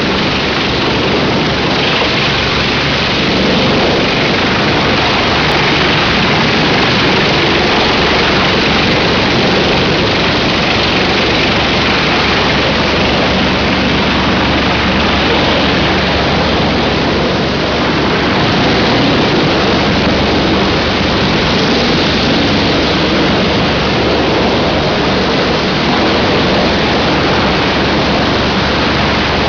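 Large industrial wood chipper running: a loud, steady, dense noise with a low hum underneath.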